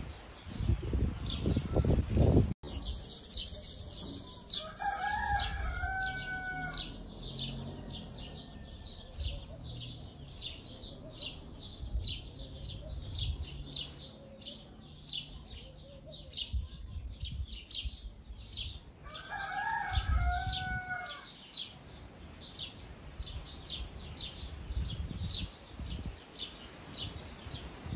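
A rooster crowing twice, about five seconds in and again near twenty seconds, each crow about two seconds long and falling in pitch at the end. Behind it a steady run of short high chirps, two or three a second, and low bumps and rustling near the start.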